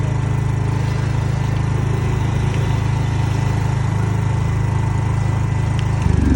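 Petrol generator set running steadily inside its soundproof enclosure, a continuous low engine hum; it grows louder near the end.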